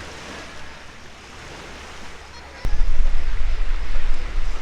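Lake Michigan surf washing onto the beach, a steady hiss. About two and a half seconds in, wind begins buffeting the microphone with a loud low rumble that stays to the end.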